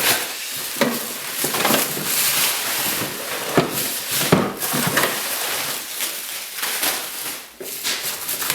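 Delivery packaging being handled and opened: continuous crinkling and rustling, with a few sharp knocks, the loudest about halfway through.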